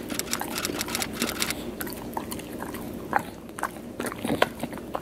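English bulldog chewing a crunchy treat close to the microphone: dense crunching for the first second and a half, then slower, separate crunches and smacks.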